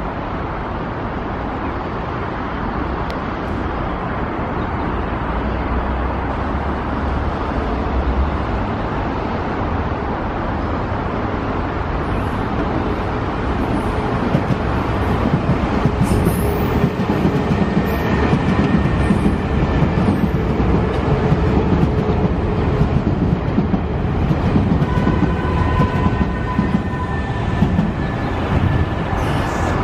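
Nankai electric commuter trains running through the station: a steady rumble of wheels on the rails, growing louder about halfway through as a train passes close by. A steady high whine comes in during the last few seconds.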